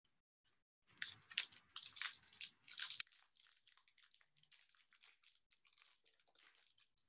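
Crinkling and tearing of a foil trading-card pack wrapper for about two seconds, in quick crackly bursts. This is followed by faint, soft rustling as the cards are handled.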